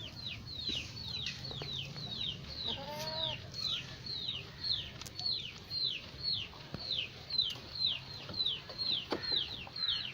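A bird peeping over and over, short high peeps that fall in pitch, about two or three a second, with a short lower call about three seconds in.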